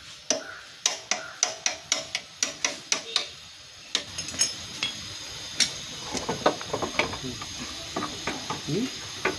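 Sharp metallic clicks from hand tools working on a Yamaha RX100 motorcycle's engine, about four a second for the first three seconds or so. After that come irregular clinks and knocks of tools and metal parts, loudest a little past halfway.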